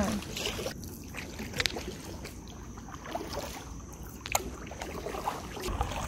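Kayak paddling: double-bladed paddles dipping and swishing through calm river water, with a few sharp knocks scattered through.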